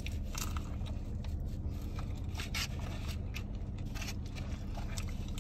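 Scattered crinkles and scrapes of fast-food packaging being handled and opened, over a steady low hum.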